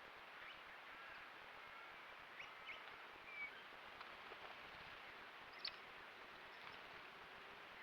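Swift parrots giving faint, scattered short high chirps and quick upswept calls over a steady background hiss, one call standing out a little louder about five and a half seconds in.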